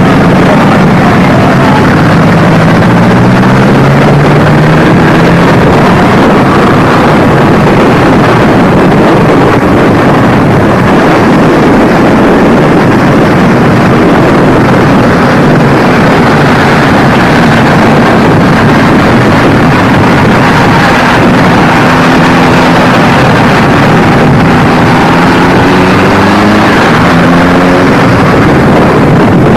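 Motorcycle engines running as a group of bikes rides along, heard from one of the moving bikes, with the engine note rising and falling several times as the riders accelerate and change speed. Wind rushes over the microphone throughout.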